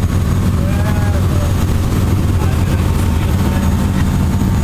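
Steady low engine drone, unbroken, with an even hum and no rise or fall. A faint voice is heard briefly about a second in.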